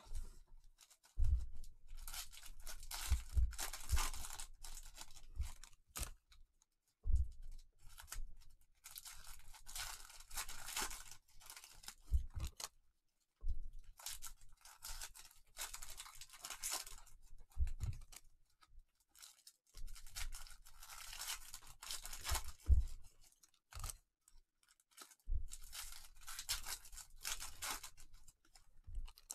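Foil wrappers of 2019 Bowman's Best trading card packs being torn open and crinkled by gloved hands, in about five stretches of a few seconds each, with light knocks of the packs and cards against the table.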